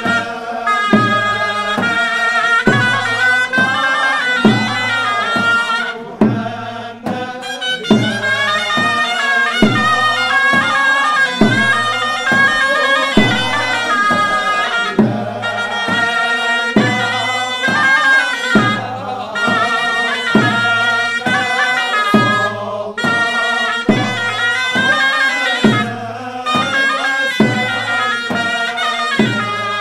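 Moroccan ghayta (double-reed shawm) playing a loud, nasal, ornamented melody over a steady drum beat struck with a stick. The melody pauses briefly about six seconds in.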